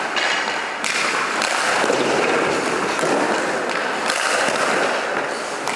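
Hockey skate blades scraping and carving on ice, a steady rasping noise that shifts abruptly every second or so as the goalie moves and drops into the butterfly.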